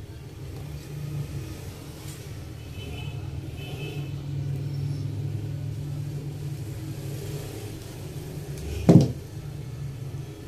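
A steady low rumble throughout, under light handling of insulated copper wire and combination pliers, with one sharp knock about nine seconds in, the loudest sound.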